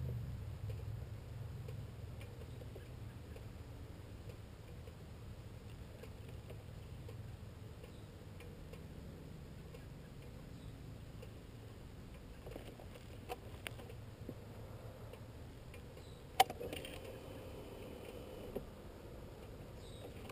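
Faint roadside quiet: a low engine rumble fades away over the first couple of seconds, then a few light ticks and one sharp click about sixteen seconds in.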